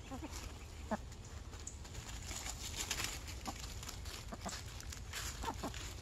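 Buff Brahma and Wyandotte hens giving a handful of short, low clucks now and then while scratching through dry leaves, the leaf litter crackling and rustling under their feet and beaks.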